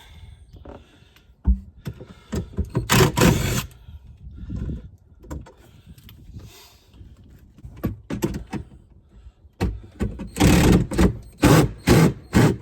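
Power drill run in short bursts, backing out the screw that holds a cabinet to the camper platform, with a sharp knock about one and a half seconds in and a quick run of bursts near the end.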